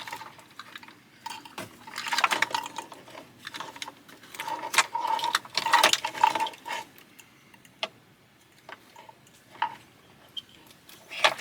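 Plastic wiring-harness connectors and cables being handled, clattering with scattered sharp clicks as a plug is sorted out and fitted to its socket.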